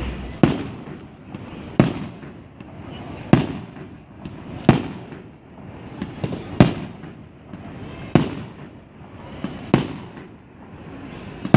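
Aerial firework shells bursting one after another: about eight sharp bangs, roughly one every one and a half seconds, each with a trailing echo.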